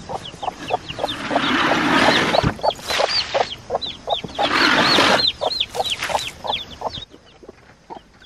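Chickens clucking and calling throughout, while feed is poured from a plastic bucket into their feeder in two rushes, about a second in and again about four and a half seconds in.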